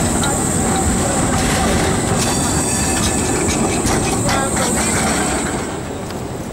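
Škoda 15T low-floor tram passing close by: a steady rumble of wheels on the rails, with a run of clicks and clatter from about two to four and a half seconds in. The sound drops a little near the end.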